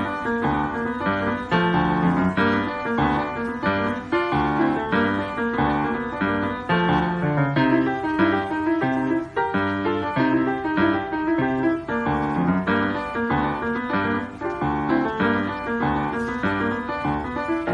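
Grand piano played in a blues style: a steady rhythm of low bass notes moving beneath higher chords, struck at an even pace.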